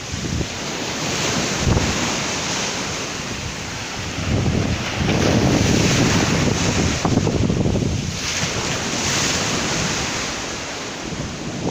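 Sea waves breaking hard on the shore, surging in and washing back several times, the biggest surge about halfway through. Wind buffets the microphone.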